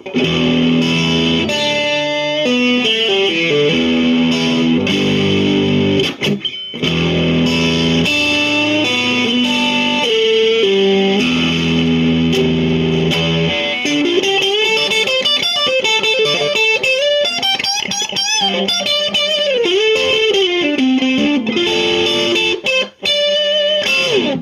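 Squier Classic Vibe '50s Duo-Sonic electric guitar played loud through a Marshall 5005 Lead 12 combo amp. It starts with a repeated chord riff and, about halfway through, switches to single-note lead lines with string bends.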